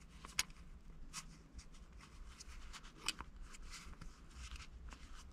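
A small flathead screwdriver scraping and clicking against a shift knob's plastic boot frame as the leather boot edge is eased into it: faint, irregular ticks and rubs.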